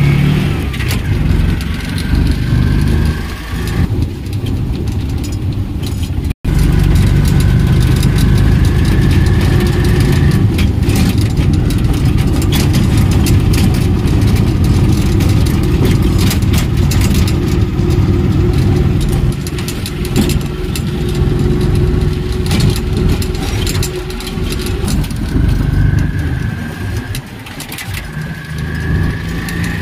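Auto-rickshaw engine running under way, heard from inside the open cabin, with the body clattering over a rough road. The engine whine climbs as it speeds up at the start and again near the end.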